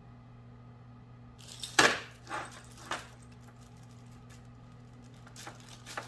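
Small metal parts clinking and rattling as a fog light pod and its mounting bracket are handled: a few sharp clinks about two seconds in, then lighter ticks near the end.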